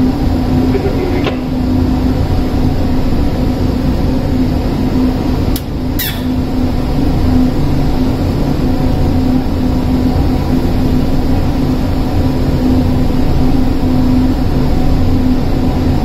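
Steady hum of shipboard machinery with a constant low tone, and two sharp clicks about six seconds in.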